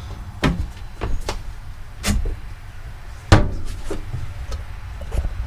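Several separate sharp knocks and clunks, the loudest a little over three seconds in, over a low steady rumble.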